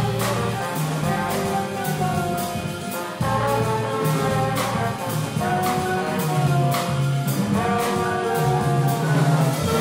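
Small jazz combo playing live: alto saxophone and trombone carry sustained melody notes over a rhythm section of drum kit, upright bass, piano and electric guitar.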